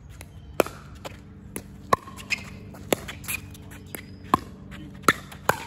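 Pickleball paddles striking a plastic pickleball in a doubles rally: about six sharp pops roughly a second apart, each with a short ring, and the last two in quick succession near the end.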